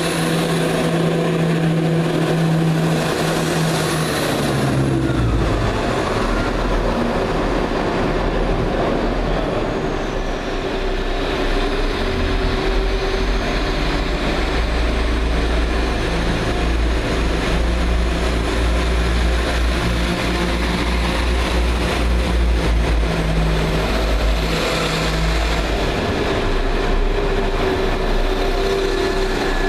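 Underfloor diesel engines of British diesel multiple units running loudly in a covered station. A Chiltern Railways Class 168 moves off first, its engine note dropping about four to five seconds in. A London Midland Class 172 Turbostar's engines then hum steadily and change note near the end as it pulls away.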